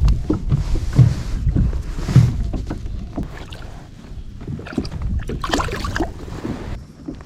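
Knocks and water sounds of someone moving about in a kayak, over a low wind rumble on the microphone that is strongest in the first half.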